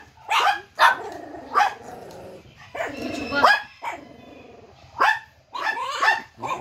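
Small dogs barking: about half a dozen short, sharp barks at irregular intervals, some coming in quick pairs.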